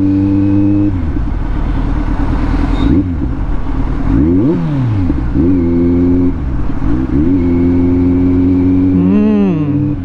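Kawasaki Z900's inline-four engine, breathing through an Arrow exhaust with the dB killer removed, running at steady revs while riding. Around the middle the revs drop and climb again, and they swing briefly once more near the end.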